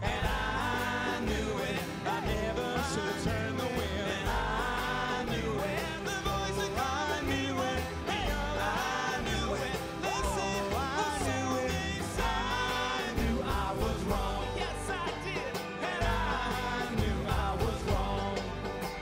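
Live acoustic band: several male voices singing together in harmony over upright bass, banjo and acoustic guitar.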